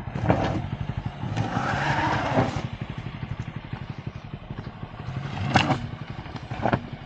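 Honda Amaze sedan creeping over a rocky dirt track: its engine runs at low revs under the crackle of tyres on loose stones. There are a few sharp knocks, two of them in the last second and a half.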